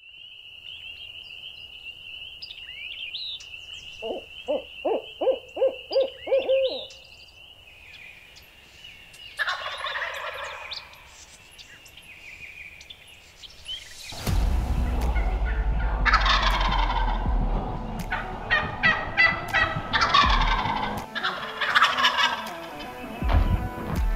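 Wild turkey gobbling: a run of about seven quick notes, then another shorter call a few seconds later, over a steady high-pitched tone. From about halfway through, a much louder, fuller sound with deep bass takes over.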